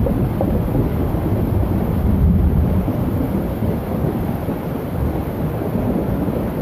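Thunderstorm: a loud, steady low rumble that swells a little about two seconds in.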